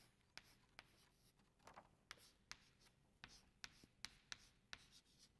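Chalk on a chalkboard writing letters: an irregular run of faint taps and short scrapes as each stroke is made.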